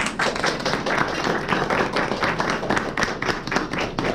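Applause from a small audience: a room of people clapping by hand, with the separate claps heard quickly and unevenly.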